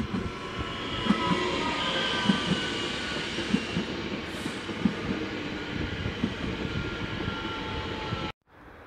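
DB class 442 Talent 2 electric multiple unit passing close by: the whine of its electric traction motors over the rolling rush, with knocks in pairs as the wheels run over rail joints. The sound cuts off suddenly shortly before the end.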